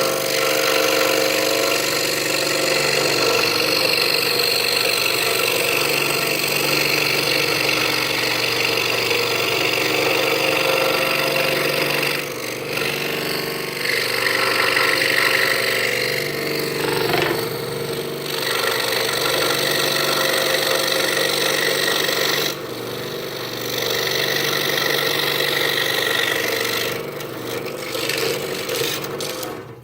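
Scroll saw running steadily with a Pegas modified-geometry No. 5 blade, cutting through half-inch pine. The loudness dips briefly a few times, and the saw stops at the very end.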